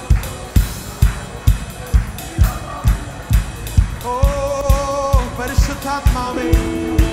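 Live worship band music with keyboard, electric guitar, bass and a steady kick-drum beat a little over two beats a second. About four seconds in, a man sings a long held note that wavers near its end, and a sustained keyboard chord follows.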